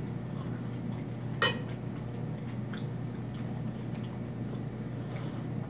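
Quiet eating sounds: chewing with a few short clicks and clinks of dishes or cutlery, the sharpest about a second and a half in, over a steady low room hum.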